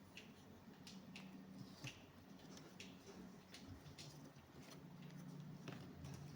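Faint, irregular clicks of cardboard jigsaw puzzle pieces being handled and set down on a table, over a low steady hum.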